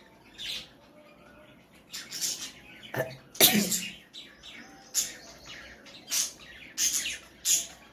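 A woman blowing her nose forcefully in a series of short, sharp blasts, about eight of them, the loudest about halfway through with a little voice in it. Her nose is congested with a heavy cold.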